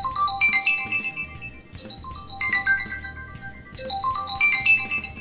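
Ringtone preview playing from a Meizu M2 Note smartphone's loudspeaker: a short bright melody that repeats three times, about every two seconds.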